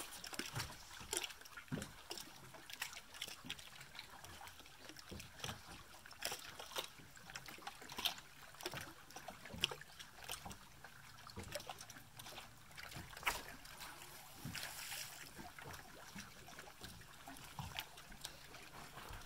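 Small waves lapping and slapping against a boat hull, with scattered light knocks and clicks.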